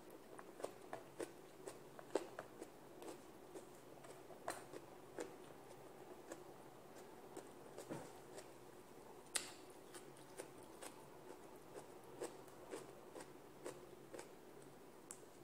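Faint eating sounds: chewing and mouth smacks, and small clicks of fingers mixing rice and food on a plate, scattered irregularly over a faint steady hum, with a sharper click about nine seconds in.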